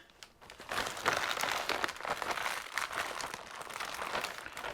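Plastic kit parts bags crinkling as they are handled: a dense, continuous run of crackles from about half a second in.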